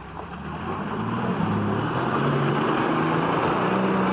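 Toyota Land Cruiser 70-series engine working hard under load as the truck crawls through a muddy trench, its pitch stepping up and down as the throttle is worked. It grows louder over the first second or so, then holds steady.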